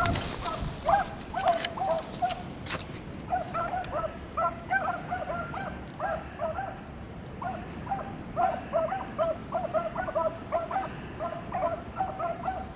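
Beagles baying in quick, overlapping calls as they run a rabbit's scent trail, with a short lull midway.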